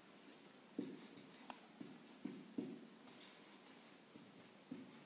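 Felt-tip marker writing on a whiteboard: a faint series of short strokes and taps as letters are drawn.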